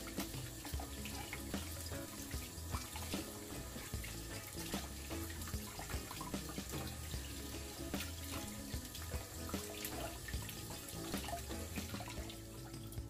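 Kitchen tap running and splashing over a chayote being rubbed clean by hand above a plastic colander in the sink. Quiet background music plays underneath.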